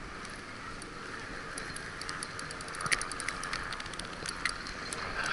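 Steady wash of sea and wind noise, with scattered sharp clicks and ticks that come more often from about two seconds in.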